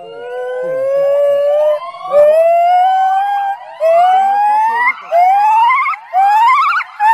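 Male white-cheeked gibbon calling: a series of whooping notes, each rising in pitch, that grow shorter and higher one after another and turn into quick wavering rising trills near the end.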